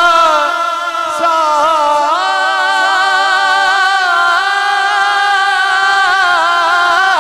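A male naat reciter singing a Punjabi kalam unaccompanied through a PA system, drawing out long held notes that glide up and down between pitches.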